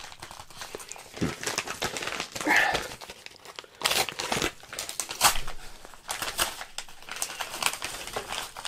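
A paper padded envelope and a plastic mailing bag crinkling and rustling in irregular crackles as they are handled and opened.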